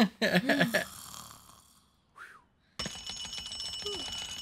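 A ringing bell alarm clock starts abruptly about two-thirds of the way in and rings with rapid, even strokes. A short, sleepy groan sounds over it as Sid wakes in the film. Before that there is brief laughter and a quiet pause.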